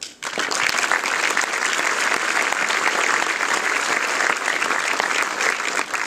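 Large audience applauding: many hands clapping in a dense, steady patter that starts abruptly and thins out near the end.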